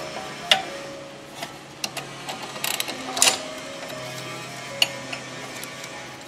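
A steel spanner clinking against the brake caliper's guide-pin bolt as it is turned: a few sharp metallic clicks with a short ring, spaced irregularly, with a quick cluster about halfway through.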